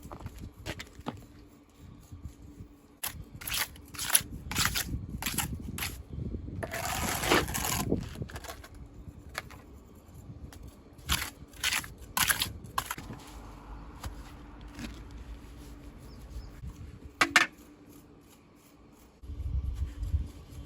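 Stone-building work: a series of sharp knocks and clacks of hard stone or tool against stone, coming in clusters, with a rough scrape lasting about a second around seven seconds in.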